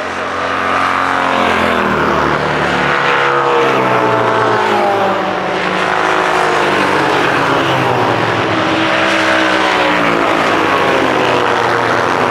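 Classic racing sidecar outfits' engines at high revs, the pitch rising and falling with throttle and gear changes, more than one engine overlapping.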